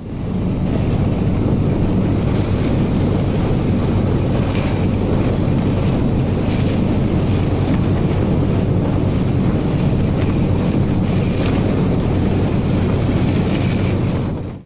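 Small motor-towing unit (a 'Barbos' motorised tow) running steadily as it pulls a sled across snow-covered ice, a constant low engine drone, with wind buffeting the microphone.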